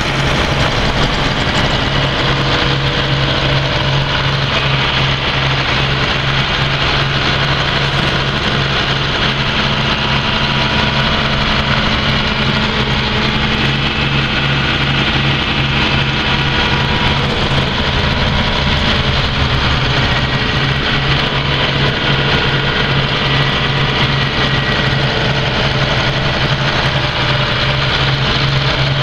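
Farm tractor engine idling steadily, an even low hum with no change in speed.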